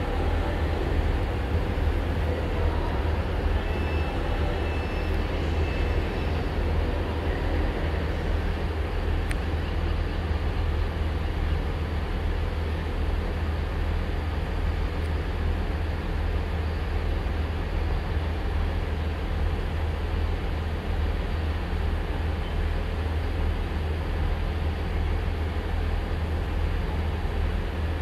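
Freight train of box wagons running along the tracks: a steady low rumble.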